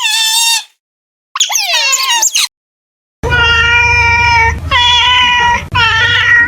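Cat meowing: a string of short, high-pitched meows, some falling in pitch, followed about three seconds in by a second set of three longer meows over a low background hum.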